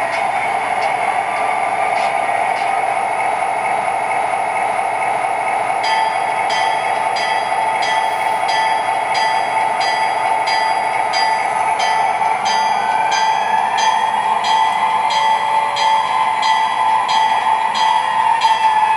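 MTH Premier O-gauge CSX SD40-2 model diesel locomotive running along the track, its Proto-Sound 2.0 speaker playing a steady diesel engine sound. A higher whine rises and falls in the second half, and a regular clickety-clack of about two clicks a second starts about six seconds in.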